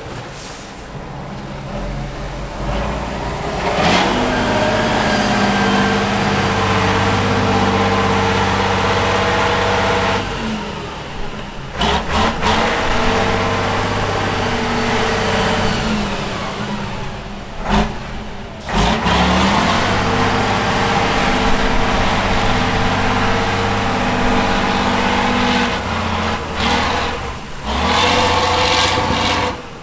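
Heavy turbo-diesel engine of an 8x8 trial truck revving hard under load as it drives through deep mud and water. It is held high in long pulls, with short drops off the throttle about a third and two thirds of the way through.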